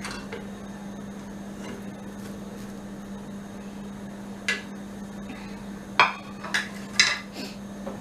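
Cooking utensils knocking against pans and vessels: about five sharp clanks in the second half, two of them loud, over a steady low hum.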